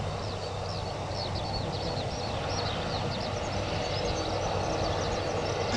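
Airbus A320-214's CFM56-5B jet engines running steadily at taxi power, slowly getting louder. Many quick high falling chirps sound over the engine noise.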